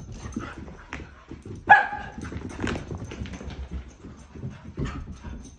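A Shiba Inu and an older dog play-fighting: scuffling with short barks, the loudest a sharp bark about two seconds in.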